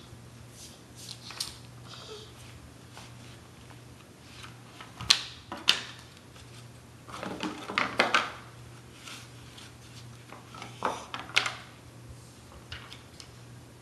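Jigsaw puzzle pieces being handled: scattered light clicks and taps, with short clattering bursts about five, eight and eleven seconds in as pieces are moved and pressed into place.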